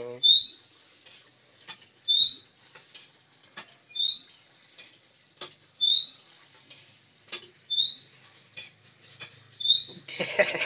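A bird calling: one short, high, rising chirp repeated at an even pace about every two seconds, six times. Faint clicks fall between the calls, and a brief rougher noise comes near the end.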